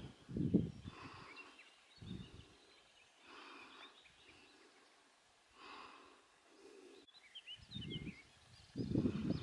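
Wind buffeting the microphone in irregular low gusts, strongest at the start and again near the end. A few small birds chirp faintly in between.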